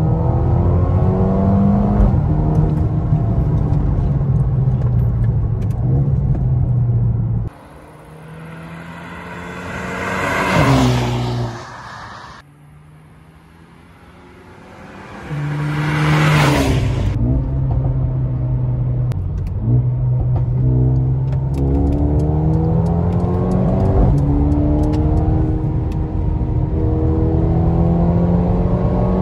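Mercedes-AMG A35's turbocharged four-cylinder engine accelerating hard through the gears, heard from inside the cabin, its note climbing and dropping at each upshift. About a third of the way in, the car is heard from the roadside instead: twice it rises to a loud pass and falls away. It then returns to the cabin, pulling through the gears again.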